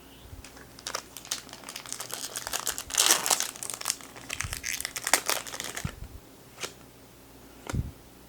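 Foil wrapper of a hockey card pack crinkling and tearing as it is opened, a dense crackle that peaks about three seconds in and stops around six seconds. Two soft taps follow near the end.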